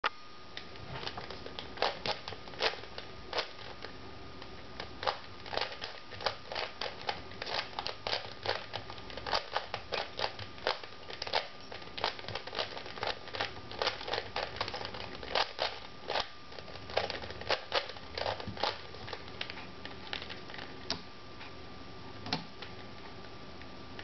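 Plastic 3x3 Rubik's cube layers turned by hand, clicking in quick irregular runs of many turns, which thin out to a few isolated clicks near the end; the turns come while the timer still reads zero, the cube being scrambled before a timed solve.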